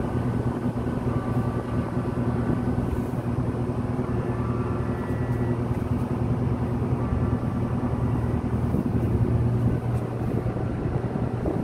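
Steady low droning hum of a cargo ship's machinery, with faint higher tones drifting in and out in the first few seconds.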